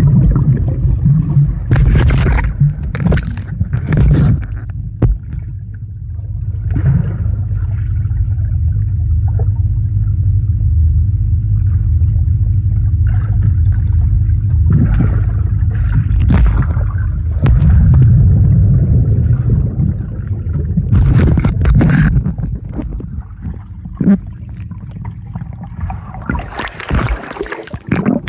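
Muffled underwater sound in a swimming pool: a loud low rumble with bubbling and splashes now and then, and a faint steady hum through the middle. Near the end the camera breaks the surface and the splashing gets brighter.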